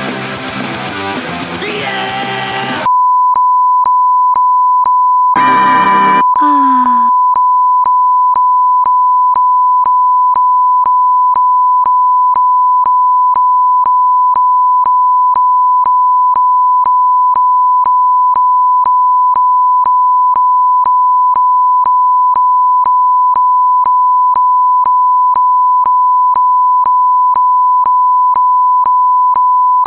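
Music for about the first three seconds, then a censor bleep: one loud, steady, single-pitch beep that starts abruptly and holds without a break. A second or so after it begins, a brief sound falling in pitch is heard over the beep.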